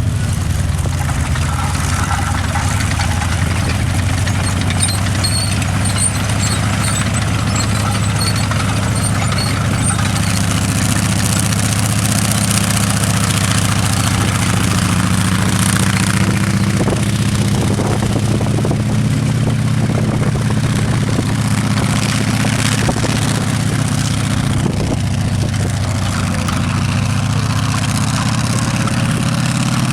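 M4 Sherman tank's engine running at a steady idle, a deep, even engine note that rises slightly in pitch around the middle and dips briefly near the end.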